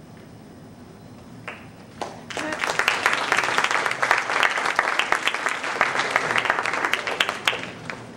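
Audience applauding: a couple of lone claps about a second and a half in, then many people clapping together from about two seconds in, dying away near the end.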